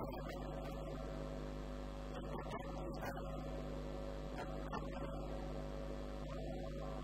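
Steady electrical mains hum with a constant background hiss.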